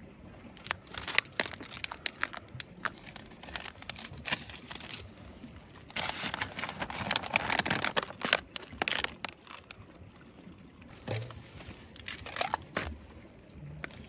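Crinkling and crunching handling sounds: irregular sharp crackles and clicks, with a denser, louder stretch of crinkling from about six to eight seconds in.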